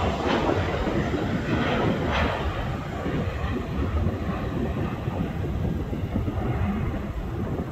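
Jet airliner's engines rumbling as it climbs away after takeoff, a steady roar that slowly fades as the plane draws off.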